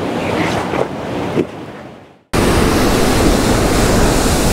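Ocean surf breaking over rocks, with wind buffeting the microphone. About two seconds in, a quieter stretch with a couple of faint knocks cuts off abruptly into loud, steady surf and wind noise.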